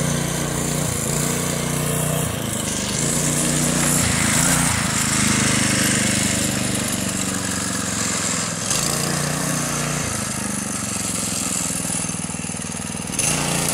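A go-kart's small single-cylinder engine running under way, its speed rising and falling repeatedly as the throttle is worked.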